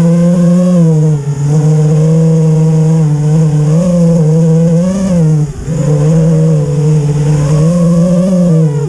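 FPV racing quadcopter's four brushless motors (T-Motor F40 III 2600 Kv) and propellers buzzing in flight, the pitch wavering up and down with throttle, with a brief drop about five and a half seconds in.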